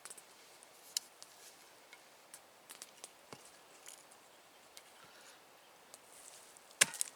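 Scattered light clicks and taps, with one sharp knock near the end.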